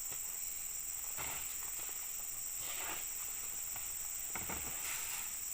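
Insects, such as cicadas or crickets, droning steadily on one high note, with a few faint rustles about a second in, near the middle and toward the end.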